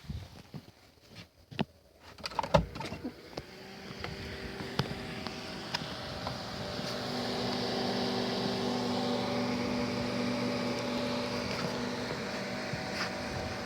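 Homemade microwave gun built from microwave-oven parts powering up: a few clicks, then a steady electrical hum with a buzz that grows louder for several seconds and then holds.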